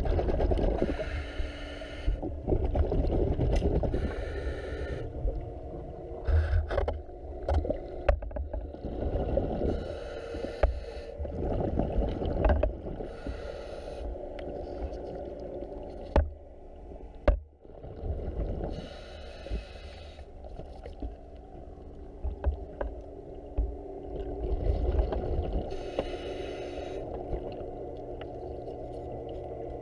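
Muffled underwater sound picked up by a diver's camera: a steady low rumble, with a rush of exhaled regulator bubbles every several seconds and a couple of sharp knocks about halfway through.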